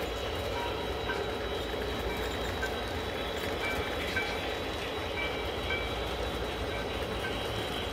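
Model trains running on layout track: a steady rolling rumble with many brief high-pitched squeaks from wheels on the rails.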